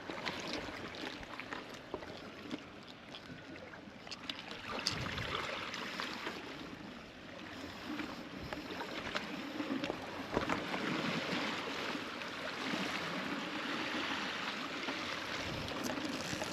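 Sea water washing and sloshing, with a few light knocks.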